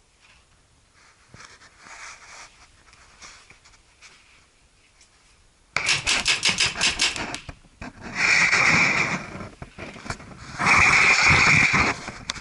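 Paintball markers firing rapid strings of shots from inside a wooden bunker: a sudden run of distinct pops about six seconds in, then two longer spells of rapid fire.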